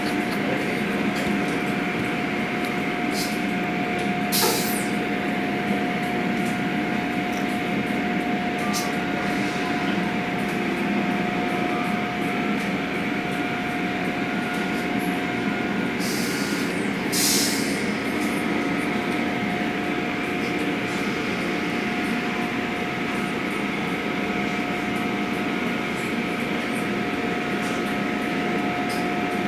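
Automatic car wash running: a steady rush of water spray and machinery under a constant steady whine, with a brief sharper hiss of spray about four seconds in and a longer one about sixteen seconds in.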